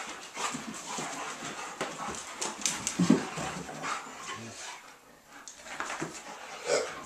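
German Shepherd and Akita play-fighting on a rug: irregular scuffling with short dog vocal sounds, loudest about three seconds in and easing off briefly past the middle.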